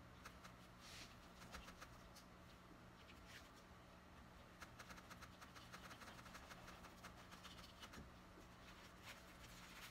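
Faint scratching and dabbing of a paintbrush on canvas, a run of quick small clicks in the middle, over a low steady electrical hum.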